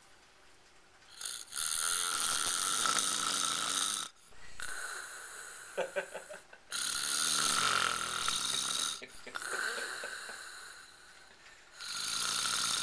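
A man asleep after heavy drinking, snoring: three loud snores about five seconds apart, with quieter breaths between them.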